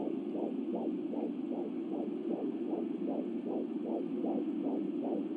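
Fetal heartbeat at 12½ weeks picked up by an Angel Sounds handheld fetal doppler: a fast, even whooshing pulse about two and a half beats a second (roughly 150 beats a minute) over a constant hiss.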